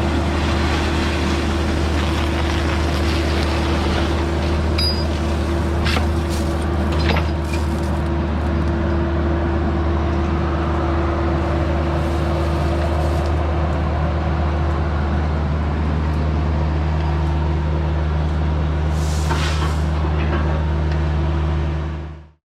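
Diesel engine of construction equipment running steadily at a constant speed, with a few light clicks and knocks over it. It cuts off just before the end.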